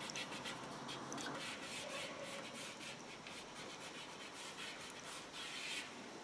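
Fingertips rubbing and pressing a decal's transfer film down onto a painted motorcycle fuel tank: faint scratchy rubbing made of many small ticks, with a firmer rub shortly before the end.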